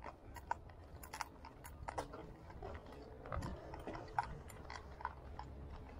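Irregular light clicks and taps, roughly one or two a second, over a low rumble of wind on the microphone: footsteps on a gritty paved road and the rattle of carried gear while walking.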